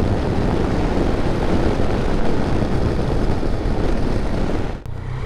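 Wind rushing over the camera microphone, over the engine and road noise of a Yamaha Tracer 900 GT three-cylinder motorcycle riding at speed. The sound cuts off abruptly near the end and gives way to a steadier, lower engine note.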